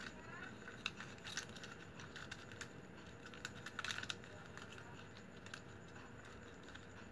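Flat plastic strapping strips being woven by hand on a hard floor: faint, scattered clicks and scrapes as the strips are slid, bent and pressed into place, with a quick run of clicks about four seconds in.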